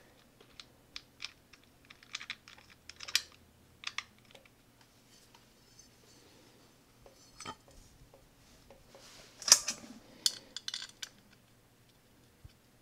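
Small metallic clicks and clinks of hand-fitting the clutch adjuster's retaining nut and spring and then the polished derby cover onto a Harley-Davidson Sportster's primary cover, with a sharper clack about nine and a half seconds in.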